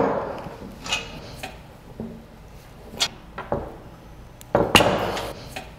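Scattered clicks and metal knocks of a ratchet and wrench working the bolts of a steel motorcycle carrier as they are tightened, with a louder clatter near the end.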